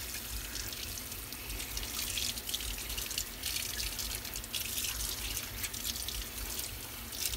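Kitchen faucet running in a steady stream onto a striped bass as gloved hands rinse and rub it in the sink, the water splashing and spattering unevenly.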